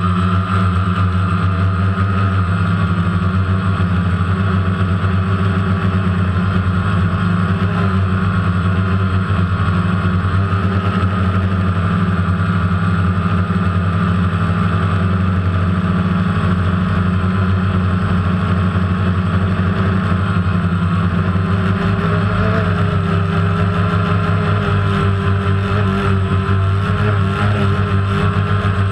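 DJI Phantom quadcopter's electric motors and propellers running steadily in flight, a loud, even drone with slight wavers in pitch.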